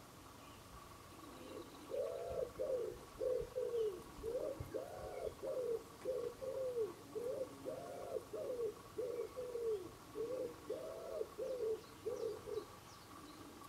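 A pigeon cooing: a long run of repeated soft, low coo notes in phrases, starting about a second and a half in and stopping near the end.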